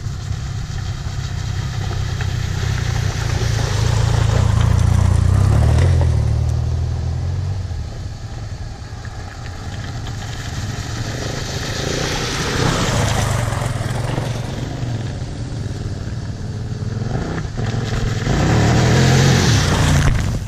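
Off-road motorcycles revving as they ride through a shallow river ford, the engine sound swelling louder several times as they come closer. Near the end one passes right by and splashes water over the microphone.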